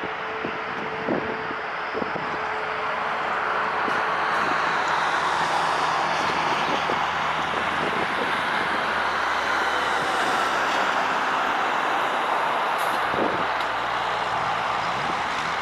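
Jet noise from a Boeing 777-200LR's twin GE90 turbofan engines at takeoff thrust. It builds over the first few seconds, then holds loud and steady.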